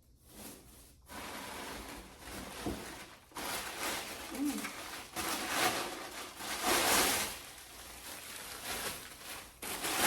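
Rustling and rubbing from handling flat-pack bar stool parts and their packaging, coming in several surges that swell and fade.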